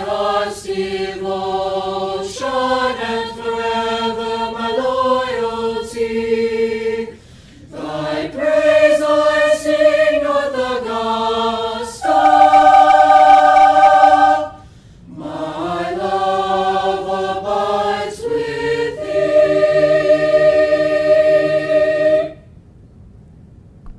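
A choir singing the school's alma mater in slow phrases of long held chords, with short breaths between phrases. The last chord cuts off near the end.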